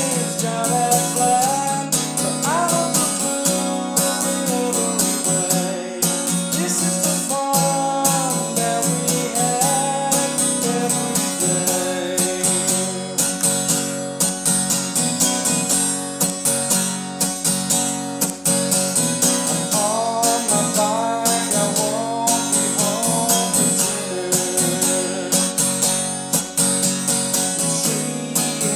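Acoustic guitar strummed in a steady rhythm, with a man singing a song over it in phrases.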